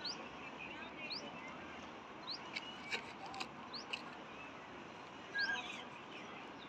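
Small bird chirping: short, high, upward-sweeping chirps repeated about once a second, over a steady background hiss.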